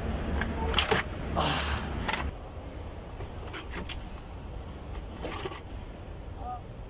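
Scattered metallic clinks and knocks of the intake manifold and tools being worked loose and lifted off a Chevrolet Express van's engine. The background noise drops about two seconds in.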